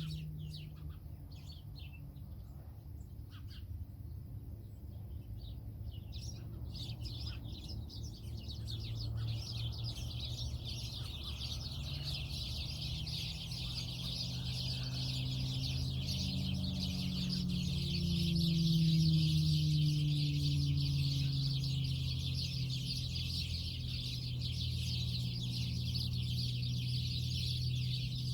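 A flock of birds in a tree chattering all at once, a dense continuous twittering that thickens a few seconds in, over a low steady hum.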